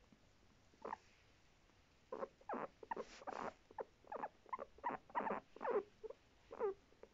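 Guinea pig calling: one short call, then a quick run of short calls, about two or three a second, some sliding down in pitch.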